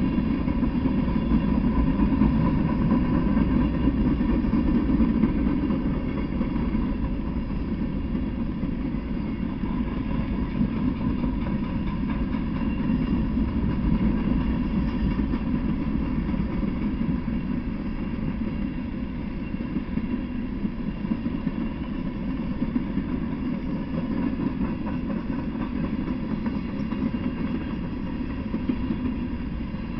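Freight train of covered hopper cars rolling past at steady speed: a continuous rolling noise of steel wheels on the rails, a little louder in the first few seconds.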